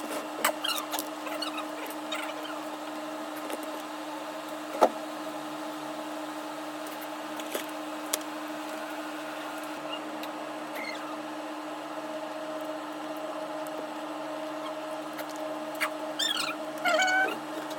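A steady electrical hum throughout, with a single sharp click about five seconds in. Bird-like chirping calls come near the start and again near the end.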